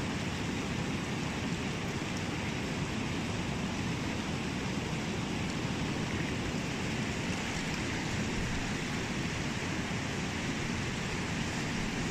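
Shallow, fast river rushing over a rocky bed: a steady, unbroken rush of water.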